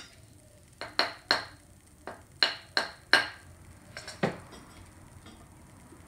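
Knocks of a wooden block against the steel housing of a small electric motor, about nine in three quick groups with a short metallic ring after each: he is knocking to loosen the motor's end cap and split the case open.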